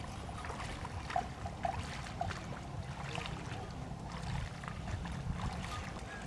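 Water splashing and sloshing as a water buffalo wades in a shallow flooded field, over a steady low rumble of wind on the microphone, with a few short clicks and chirps between one and two seconds in.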